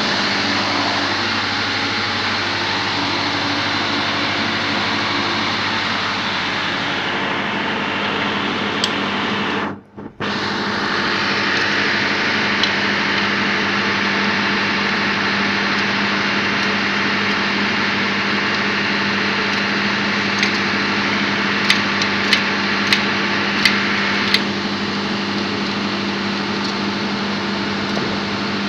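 Steady, loud drone of running engine-room machinery aboard a tug, with a low hum. It cuts out for a moment about a third of the way in, and several sharp clicks come about three-quarters through.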